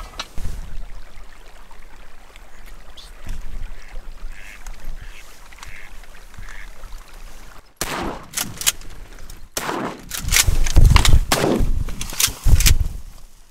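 A volley of shotgun shots, several sharp blasts in quick succession over the last five or so seconds, following a quieter stretch.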